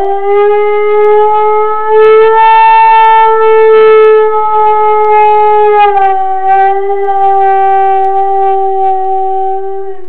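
A Pharaoh hound's long, loud howl, like an air raid siren, held on one pitch with a slight drop about six seconds in. The dog howls like this when left home alone.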